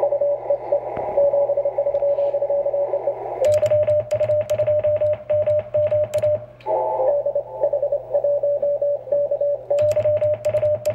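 Morse code (CW) on the 20 m band through an HF transceiver's speaker: many stations keying at once on slightly different pitches, the jumble of a pileup calling a rare DX station. Twice, a single clean keyed tone takes over with sharp rhythmic clicks along with it, the operator's own sending.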